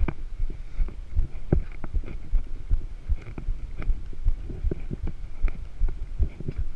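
Irregular low thumps and short knocks, several a second, from a mountain bike jolting over a concrete road surface, carried into the rider's action camera as rumbling vibration.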